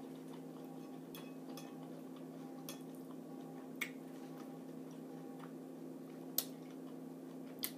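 Quiet chewing of a forkful of food, with a handful of short soft clicks, over a steady low hum.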